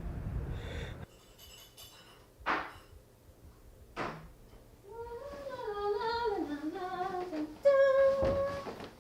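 A woman humming a wordless tune that wavers up and down, ending on a held note. Before it, background music cuts off about a second in, and two short thuds sound.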